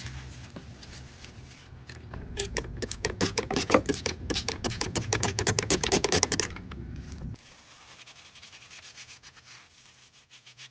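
Rapid scrubbing of a dirty phone case: a dense run of quick rubbing, scratching strokes starting about two seconds in and stopping a little after seven seconds, over a low hum that cuts off at the same moment; fainter scratches follow.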